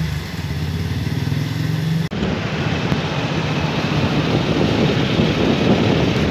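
Motorcycle engine running steadily while riding at road speed, a low hum. About two seconds in the sound changes abruptly to a loud rush of wind on the microphone and road noise over the engine.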